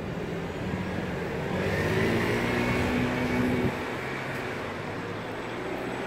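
Road traffic: a motor vehicle's engine and tyres pass, swelling about a second and a half in and falling away just before four seconds, over a steady low hum.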